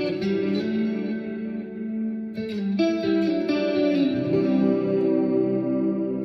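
Clean electric guitar played on the neck pickup of an EVH Frankie (Frankenstrat-style guitar): chords struck and left ringing, with a fresh chord struck about two and a half seconds in.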